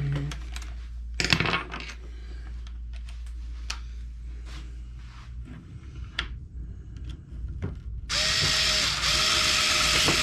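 Small plastic parts and screws clicking and knocking as they are handled, then an electric screwdriver running in two short bursts of about a second each, driving 2 mm screws into a plastic RC ESC cage, its motor whine steady in pitch.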